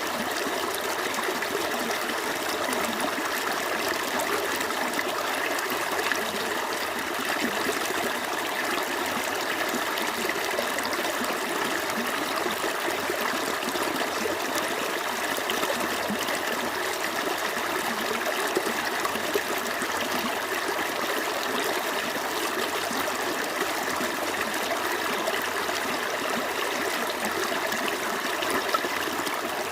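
A small stream running steadily over rocks, a continuous trickling and babbling of water.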